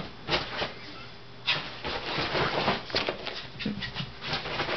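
A Yorkshire terrier and a cat scuffling in rough play: quick, noisy rustles and scrapes, thickening into a dense run about a second and a half in.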